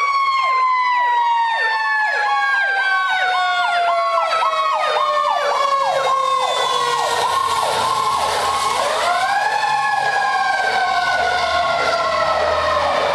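Fire apparatus sirens: a long wailing tone that slides slowly down the whole time, under a fast, repeating electronic yelp. A second wail winds up about nine seconds in. From about six seconds in, the low rumble of the fire engine's diesel joins as it passes close by.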